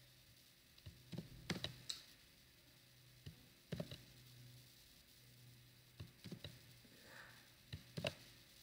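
Quiet, scattered clicks of a computer keyboard, a few keystrokes at a time in small clusters, over a faint steady low hum.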